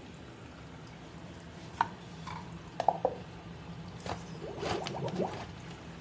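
Aquaponics bell siphon beginning to draw: water dripping, plopping and gurgling in short bursts, thickening into a run of gurgles about four seconds in as the siphon starts, over a low steady hum.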